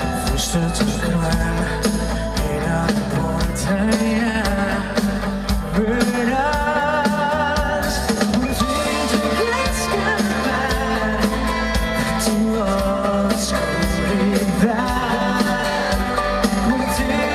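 Live rock-style band music with a singer, drum kit and guitar, amplified through a PA.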